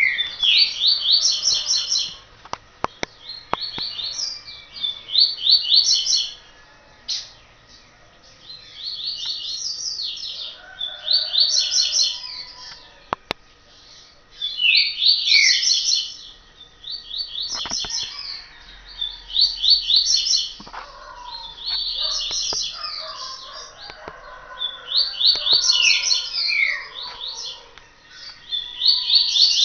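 A songbird singing short, high, rapidly trilled phrases over and over, with pauses of a second or two between them. A few sharp clicks fall between phrases.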